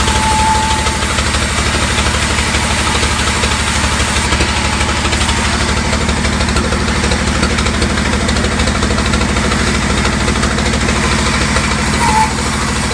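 Sawmill's engine running steadily with a fast, even pulse. A brief high-pitched whine sounds just after the start and again near the end.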